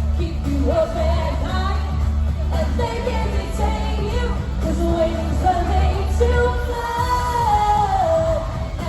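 Pop song playing: a singing voice carrying a melody over a held bass line, with the bass dropping out about 7 seconds in.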